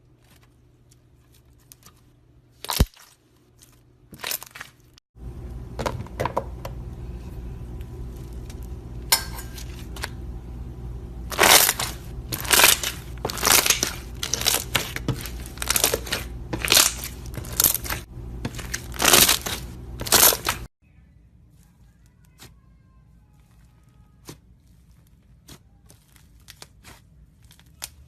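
Slime being squeezed and worked by hand, giving a run of sharp crackling pops and clicks that grow densest and loudest in the middle, over a steady low hum that cuts off suddenly about two-thirds of the way in.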